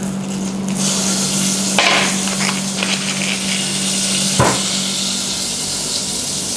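Butter sizzling as it melts in a hot stainless steel pot, over a steady low hum, with a sharp click about four seconds in.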